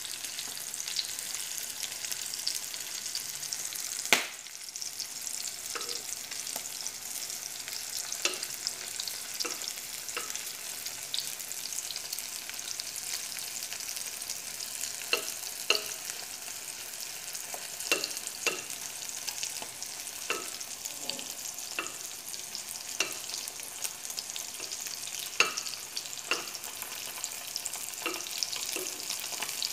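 Hot dogs sizzling in oil in a frying pan, with a metal spoon clicking and scraping against the pan as they are stirred and turned now and then. One sharper knock of the spoon about four seconds in.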